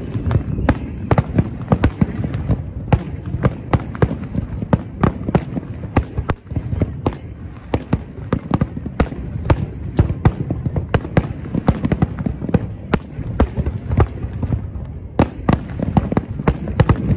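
Aerial firework shells bursting in quick succession: sharp bangs, several a second, over a continuous low rumble of overlapping bursts.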